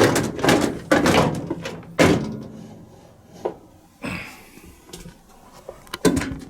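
Dishwasher bottom basket and its fold-down racks being handled: a run of clattering knocks, the loudest in the first two seconds, then scattered weaker ones and another pair near the end.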